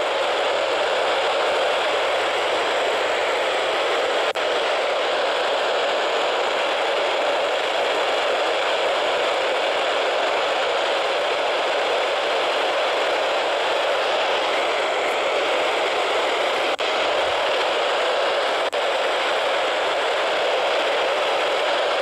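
Steady static hiss from a Midland weather radio's small speaker, tuned to a NOAA weather frequency with no clear station coming in. The hiss cuts out for an instant three times.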